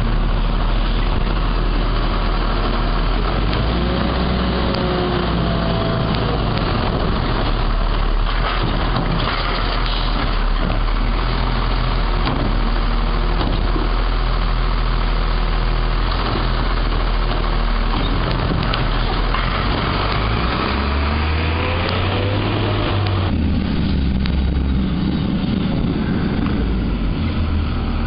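Sterling Condor garbage truck's diesel engine running close by, while its automated side arm's hydraulics work at the curbside carts, with a couple of brief whines that change in pitch.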